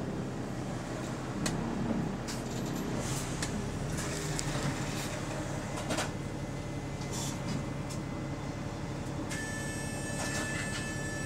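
Inside a double-deck bus at a stop: the engine running with a steady low hum, scattered clicks and knocks from the doors and fittings, and a steady electronic tone sounding from about nine seconds in.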